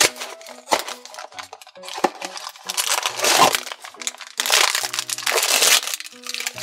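A few light clicks as a small cardboard blind box is opened, then a black foil blind bag crinkling in two long bursts as hands squeeze it and pull it open.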